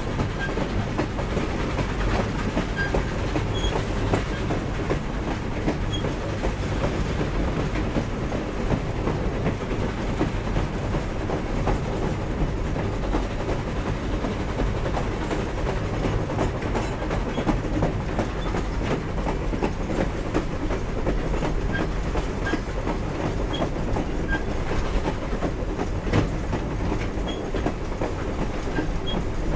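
Grand Canyon Railway train hauled by steam locomotive 4960, rolling steadily along. The wheels rumble on the rails, with a constant scatter of small clicks and clanks from the cars.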